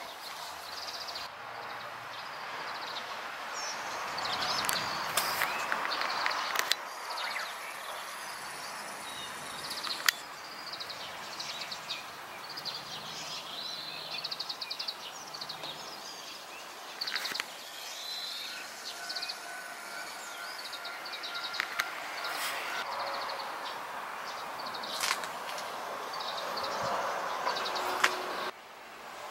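Outdoor ambience: small birds chirping and twittering over a steady background hiss, with a few sharp clicks scattered through.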